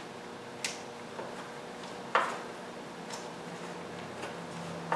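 Scattered metal clicks and clinks of a T-handle wrench turning the bar nuts on a Stihl chainsaw's side cover, about four, with the loudest about two seconds in. A faint steady hum lies beneath.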